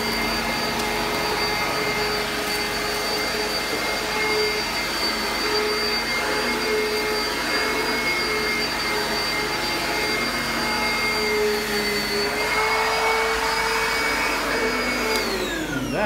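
Oreck XL upright vacuum cleaner running over carpet with a steady high whine. Near the end it is switched off, and the whine falls in pitch as the motor winds down.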